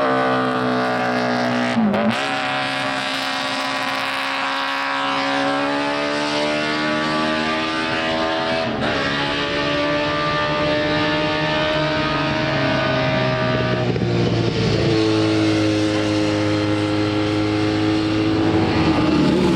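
Honda six-cylinder GP racing motorcycle engine running at high revs, a loud, steady multi-toned note that drifts slowly in pitch and dips sharply and recovers three times, about two, nine and fourteen seconds in.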